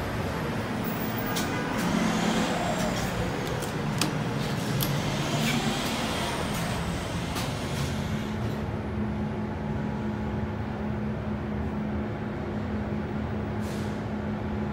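Schindler glass elevator: street traffic and a few sharp clicks are heard at first. About eight seconds in, the outside noise drops away and a steady low hum from the moving cab remains.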